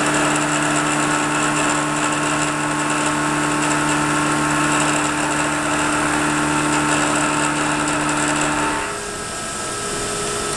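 Vertical milling machine taking a light pass with an end mill on a part held in a vise: a steady whine with dense high cutting hiss. The cut ends about nine seconds in, leaving the spindle running more quietly.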